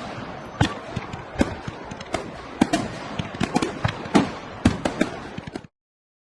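Fireworks going off: a rapid, irregular string of sharp bangs over a steady crackle, cutting off abruptly near the end.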